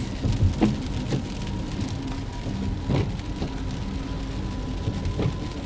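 Heavy rain falling on a vehicle over a steady low hum, with a few sharp taps scattered through it.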